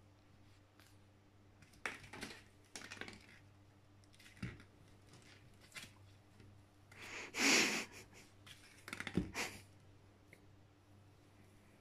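Aluminium foil ball crinkling and tapping on a wooden parquet floor as it is handled and batted about, in a handful of short bursts; the loudest is a longer rustle a little past the middle.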